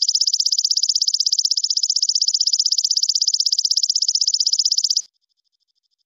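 Belalang kecek insect calling: a loud, fast, evenly pulsed high trill that cuts off abruptly about five seconds in. A faint pulsing of the same call trails on just after.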